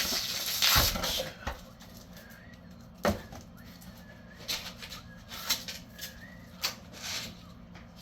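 Hand demolition of an old heavy timber door frame: a noisy crack and scrape of wood being pried loose in the first second, one sharp hammer blow about three seconds in, then several lighter knocks. Faint bird chirps in the background.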